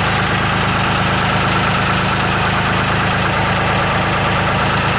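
A Ford New Holland 3930 tractor's three-cylinder diesel engine idling steadily, shortly after a cold start in below-freezing weather.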